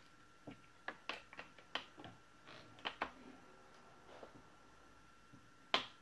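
Hands working on a laptop's plastic casing and display hinge: a quick run of sharp clicks and taps, then a few more, with one louder knock near the end.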